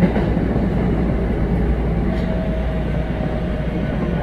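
Kintetsu 7000 series electric train with Mitsubishi GTO-VVVF traction equipment running, heard from inside the passenger car: a steady low rumble of wheels on rail, with a faint steady whine joining about two seconds in.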